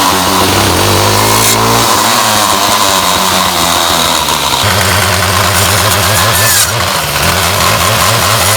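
Ryobi 31cc two-stroke trimmer engine running, its pitch wavering and dropping with the throttle about four and a half seconds in.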